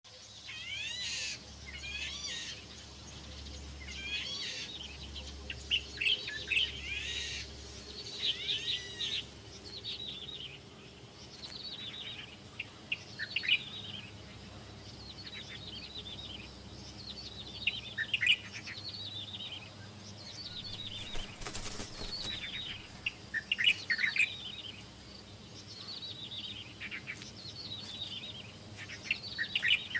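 Many birds calling together: overlapping short, high chirps that sweep downward in pitch, coming in clusters throughout, over a faint steady high-pitched tone.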